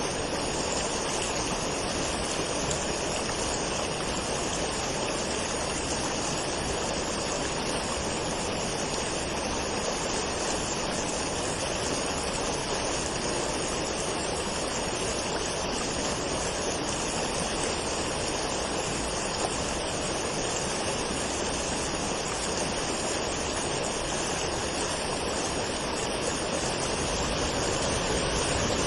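Waterfall: water falling and rushing in a steady, even roar, with a little more low rumble near the end.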